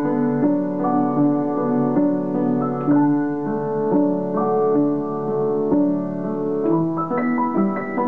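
Solo piano playing a slow, gentle piece: single notes and chords struck about once a second, each left to ring into the next. Near the end the notes come quicker and higher.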